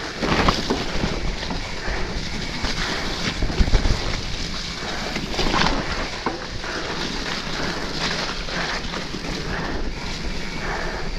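Mountain bike riding over a rocky trail: wind buffeting the camera microphone, with frequent knocks and rattles from tyres striking stones and the bike shaking.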